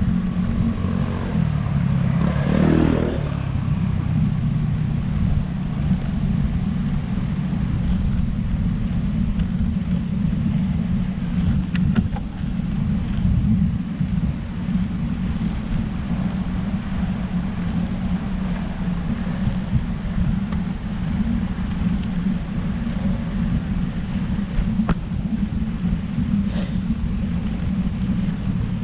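Wind buffeting the microphone of a camera on a road bike climbing a hill, a steady low rumble. A brief pitched sound rises and falls about two to three seconds in.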